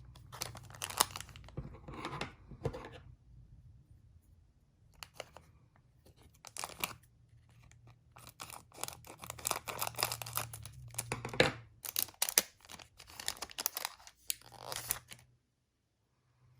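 Pokémon card booster pack wrapper being torn open and crinkled, in irregular bursts of tearing and crackling that stop near the end.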